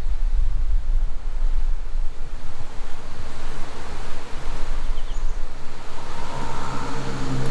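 Ford Maverick's 2.0-litre EcoBoost turbo four-cylinder pickup on the move: a steady low rumble of wind and road noise, with the engine note coming up about six seconds in.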